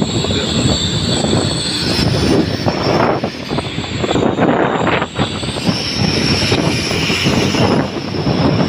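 Daihatsu Gran Max pickup running with a homemade 'suos' whistle fitted in its exhaust, giving a high jet-like whistle over the engine's rumble. The level rises and dips as the engine is worked.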